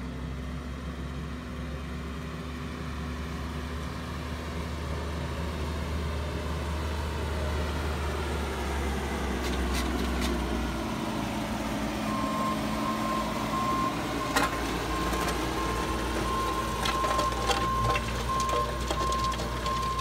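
Bobcat skid steer's diesel engine running as it works the soil with a soil conditioner (Harley rake), growing louder as it comes closer. From about twelve seconds in, a backup alarm beeps over it, with scattered sharp clicks near the end.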